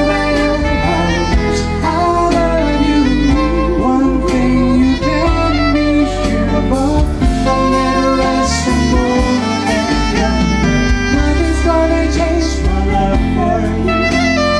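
Live band music with a man and a woman singing a duet into microphones, backed by an electric guitar among the instruments.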